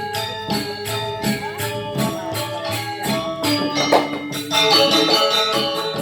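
Balinese gamelan gong kebyar playing: bronze metallophones ring out a melody over regular cymbal strokes, about three a second. The music grows denser and louder about four and a half seconds in.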